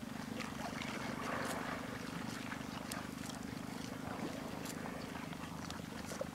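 Swamp buffalo tearing and chewing water plants: scattered crisp clicks and crunches over a steady low motor hum.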